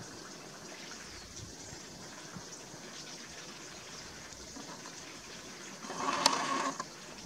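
Steady faint water noise on an open stretch of reedy water where an otter swims. A louder sound lasting just under a second comes about six seconds in, with one sharp click at its peak.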